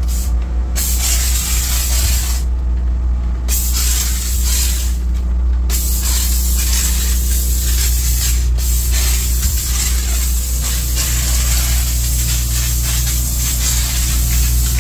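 Handheld steam cleaner spraying steam in a steady hiss that breaks off briefly a few times as the trigger is let go, over a steady low hum.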